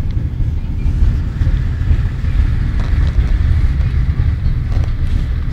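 Car driving, heard from inside the cabin: a steady low rumble of engine and tyres on a road covered in hail slush.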